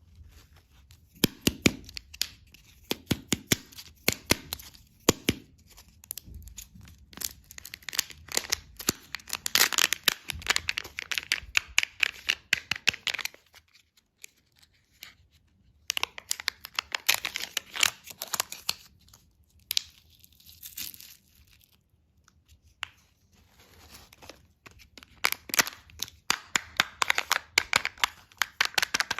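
Plastic candy packaging crinkling and being torn open by hand, in three long bursts of crackling with short pauses between.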